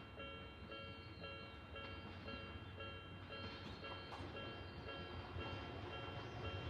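Japanese railway level-crossing warning bell, an electronic Odakyu-style tone, ringing in a steady repeating rhythm. Under it a train's rumble grows louder toward the end as the train approaches the crossing.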